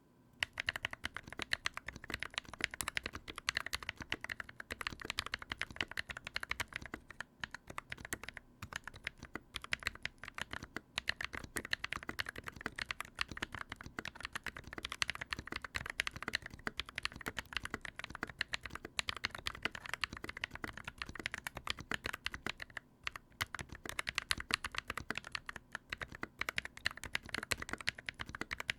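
Typing on an NK65 Entry Edition mechanical keyboard with Holy Panda tactile switches: a steady stream of key clacks with a few brief pauses. The spacebar's stabilizers have just been tuned to cure the stock spacebar rattle, and the result is "much better".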